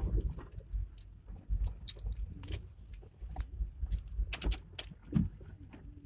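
A car rolling slowly over a potholed, waterlogged dirt road, heard from inside the cabin: an uneven low rumble with irregular clicks and rattles, and a brief squeak about five seconds in.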